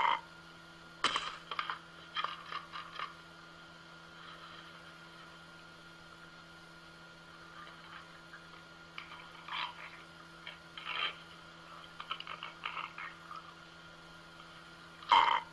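Dog eating from a plastic slow-feeder bowl: spells of sharp clicking and clatter as food and the bowl knock against the hard floor, with a quiet stretch in the middle.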